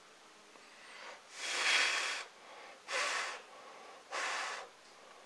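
Three puffs of breath blown onto freshly laid hot glue to cool it. The first is the longest and loudest, the other two shorter, about a second apart.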